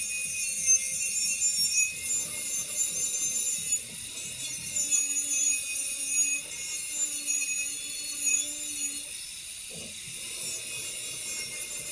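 Continuous abrasive scraping, with background music.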